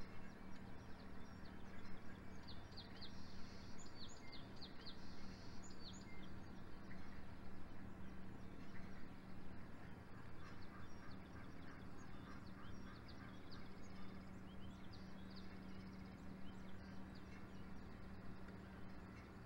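Birds chirping: runs of short, high chirps, thickest a few seconds in and scattered through the rest, over a low steady hum.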